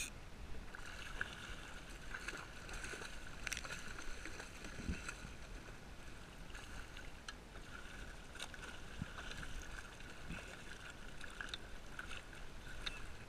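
Sea water lapping and splashing against a kayak's hull, with scattered light clicks.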